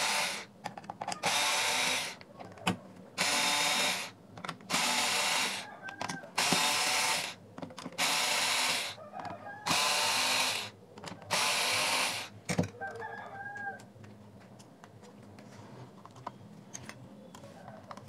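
Cordless electric screwdriver unscrewing the speaker drivers' mounting screws, eight runs of about a second each with short pauses between them. After that come a few seconds of quieter handling with light clicks as a metal spudger starts to pry a driver out.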